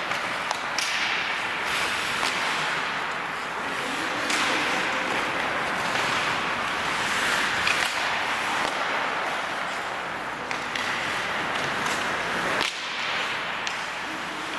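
Ice hockey skates scraping across the ice in a steady hiss, with sharp clacks of sticks hitting the puck several times.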